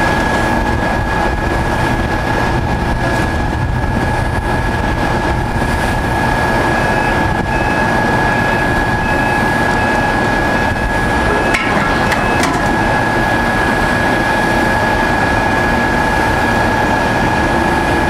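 Link-Belt excavator running steadily under load, its diesel engine and hydraulics making a continuous din with a constant high whine as its hydraulic shear works scrap steel. A couple of sharp metal clanks come about twelve seconds in.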